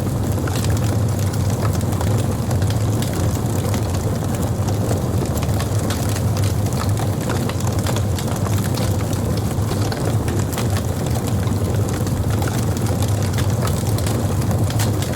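Wood burning on a campfire, crackling and popping in quick irregular clicks over a steady low rumble.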